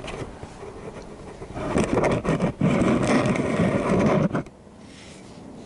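Scraping and rubbing handling noise, loud for about two and a half seconds from nearly two seconds in, then dropping away.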